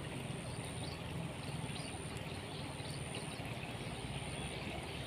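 Steady ambience of a river running, with an even low rumble and a faint high-pitched whine that breaks off and resumes several times.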